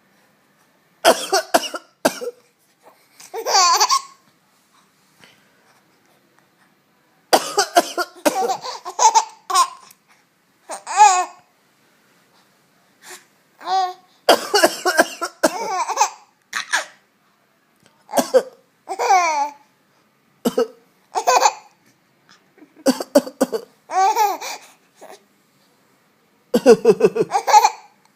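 A man coughing repeatedly, each round of coughs answered by a baby's laughter, back and forth about seven or eight times.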